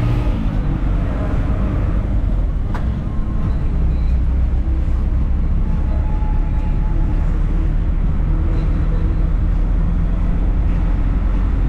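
Steady low rumble of a moving road vehicle and the traffic around it, with a single sharp click about three seconds in.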